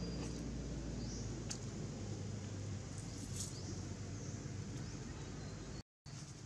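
Outdoor ambience: a steady low rumble with a few faint high chirps and light clicks. The sound cuts out completely for a moment near the end.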